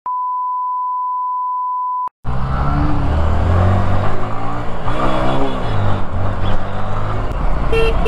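A steady, high censor bleep for about two seconds, covering swearing. It cuts off sharply to a motorcycle riding in city traffic, its engine running under the traffic noise, and near the end a vehicle horn starts tooting in short repeated blasts.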